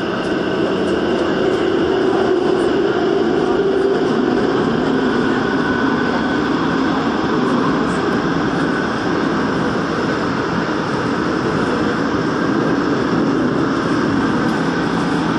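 Daegu Metro Line 2 subway train running at speed through a tunnel: a steady rumble of wheels on rail, with faint steady whine tones above it.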